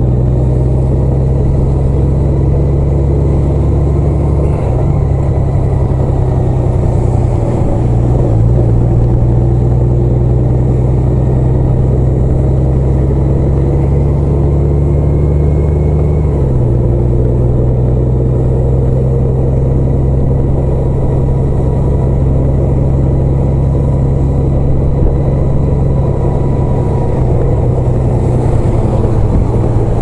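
A road vehicle's engine running at a steady speed while driving, a low, steady hum that steps down in pitch about sixteen seconds in.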